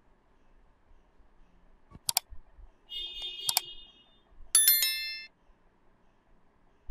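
Subscribe-button animation sound effects: a sharp mouse-click sound about two seconds in, then a short high tinkling tone with another click. About four and a half seconds in, a bell-like notification chime rings for under a second.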